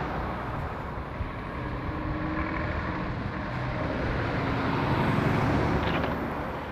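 Articulated lorries driving past close by on a roundabout: diesel engine and tyre noise that builds to its loudest about five seconds in as a tractor unit and trailer go by, then eases off.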